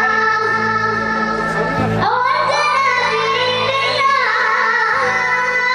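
Solo male munshid singing a mawwal: long held, ornamented notes that glide and waver in a slow improvised line, over a steady low drone. A new phrase begins about two seconds in with a rising glide.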